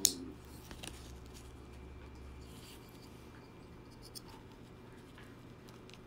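Sharp metallic click from a folding utility knife being handled, then a fainter click about a second later and a few soft ticks and scrapes.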